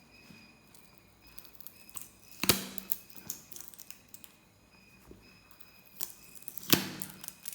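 Cardboard speaker box being handled and opened: two sharp clicks or knocks, about two and a half seconds in and again near the end, with lighter ticks and rustles between.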